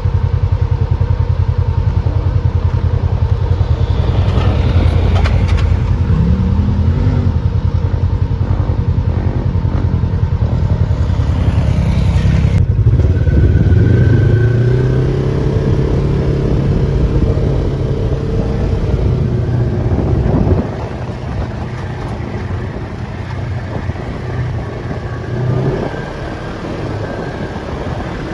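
Off-road vehicle engine running hard, its revs rising and falling. About two-thirds of the way through it eases off and runs quieter.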